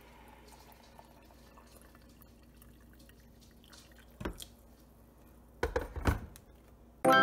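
Hot water poured in a thin stream from a stainless steel kettle into a ceramic mug, faint and trickling. A single clink comes about four seconds in. The kettle is set down on a wooden counter with a few knocks near the end.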